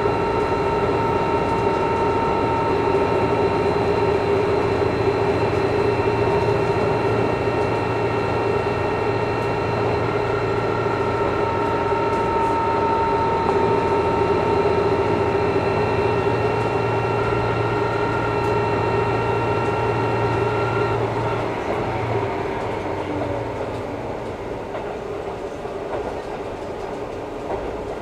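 Inside a KiHa 11 diesel railcar running on the line: the engine and drive run steadily under power with a set of steady droning tones over the rolling noise. About three quarters of the way through, the power is shut off, the engine tones drop away and the car coasts on with only wheel and rail noise.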